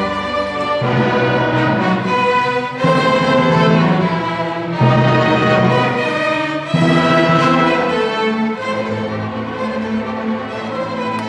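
A middle school symphony orchestra playing, violins prominent over the full ensemble. It plays sustained chords that change every couple of seconds, with louder entries about 3, 5 and 7 seconds in, then softens toward the end.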